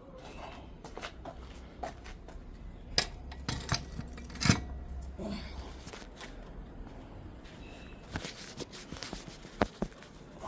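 Scattered metallic clicks, clinks and knocks of hand tools and brake parts being handled while fitting a motorcycle's rear brake pedal assembly, busiest around the middle and again near the end.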